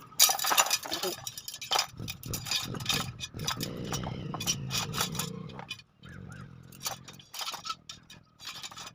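Steel wheel spokes and hub parts clinking and knocking as they are handled during lacing of a motorcycle wheel: irregular sharp metallic clinks, the loudest one just after the start, with a stretch of low rustling and scraping in the middle.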